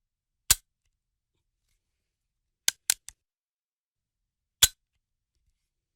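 .50 caliber gunshot sound effects: a single sharp shot about half a second in, a quick burst of three near the middle with the third fainter, then another single shot about two-thirds through. Each report is very short, with almost no tail, and there is dead silence between them.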